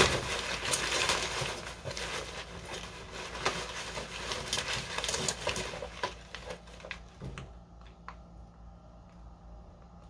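Bubble wrap and packing being rustled and pulled away as a boxed figure is unwrapped: dense crackling and rustling for about six seconds, then a few light ticks of handling before it goes quiet.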